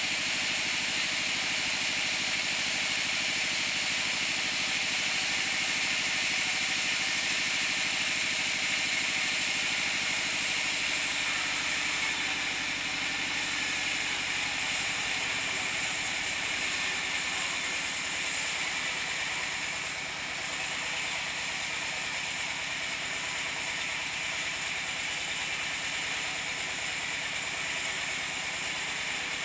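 Band sawmill cutting lengthwise through a mango-wood log: the blade in the wood makes a steady, high-pitched rushing noise over the machine's running, dipping briefly about twenty seconds in.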